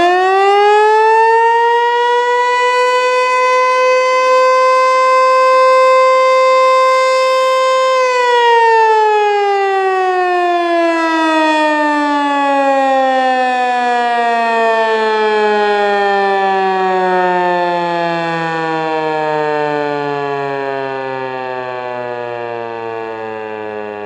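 ASC T-121 AC/DC outdoor warning siren sounding a test blast: it finishes winding up, then holds a steady tone of about 527 Hz. About eight seconds in it is cut off and winds down slowly, its pitch sliding lower and lower as it fades.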